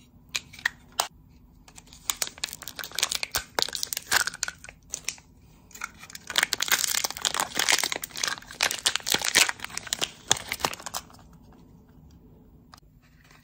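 Contact-lens packaging being opened by hand: a run of crinkling and tearing with many small clicks, sparse at first, densest in the middle, dying away about two seconds before the end.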